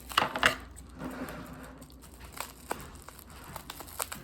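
Packaging of a small bottle of cube lubricant being opened by hand: crinkling and rustling, with a few sharp clicks, a cluster near the start and single ones scattered later.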